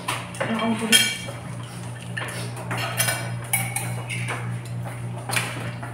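Tableware clatter at a meal: a bright ringing clink about a second in, then scattered clicks and short rustles of spoons, plates and mug, over a steady low hum.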